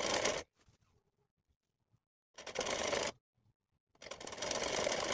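Sewing machine stitching in three short runs: a brief one at the start, another about two and a half seconds in, and a longer one from about four seconds in. Each run is a fast, even patter of stitches, with pauses between runs.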